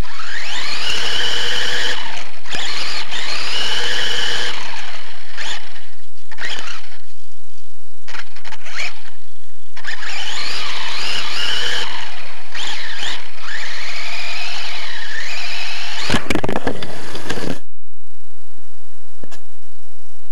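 Brushless motor of a 1:24 micro RC car whining close to the microphone, its pitch rising and falling over and over as it speeds up and slows. Near the end a loud rough clattering burst, then the whine cuts off suddenly.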